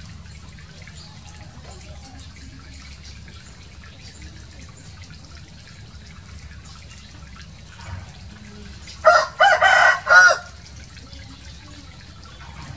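Steady sound of running water, with a rooster crowing once, loud, about nine seconds in and lasting about a second and a half.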